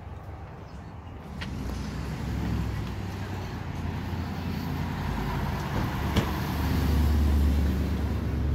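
A motor vehicle driving along the street. Its low engine rumble builds from about a second in and is loudest near the end, with a single sharp click about six seconds in.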